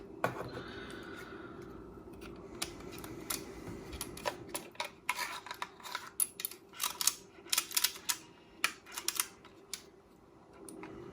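Quick, irregular clicks and clatter of hard plastic, from cassette tapes and their cases being handled and picked through. The clicks come thickest in the middle stretch, over a faint steady hum.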